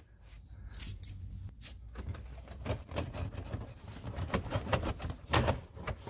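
A quick run of clicks from a hand screwdriver backing out the Torx screw at the side of a Saab 9-3's center console, with rubbing and handling knocks. Near the end come the loudest knocks, from the plastic console side trim being pulled loose.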